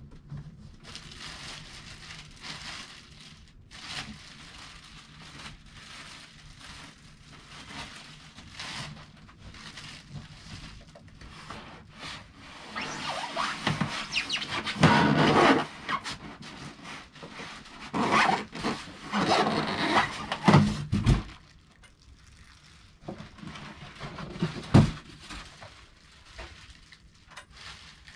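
Plastic bag rustling and cardboard and packing insert scraping as a DeWALT miter saw is lifted out of its box, with two louder stretches of handling noise in the middle. There is one dull thump near the end.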